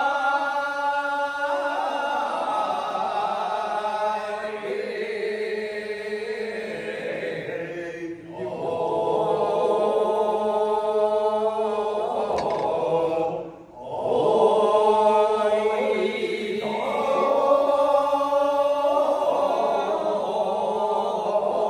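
Iwai kiyari, the celebratory Edo work song, chanted by a group of men in unison: long, drawn-out vocal phrases with a wavering pitch, pausing briefly for breath about eight and thirteen and a half seconds in.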